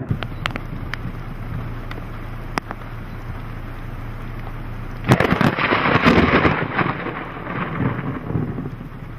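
Thunder from a nearby lightning strike: a sharp crack about five seconds in that rolls into a rumble for two to three seconds before fading, over a steady hiss of rain.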